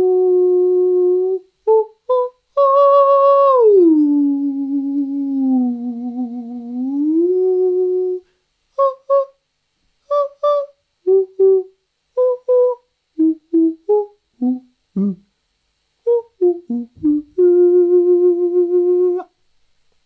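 A man's voice singing "ooh" without words. A held note is followed by a glide up, then a long slide down to a lower, wavering note and back up. A run of short separate notes at varying pitches follows, ending with another held note.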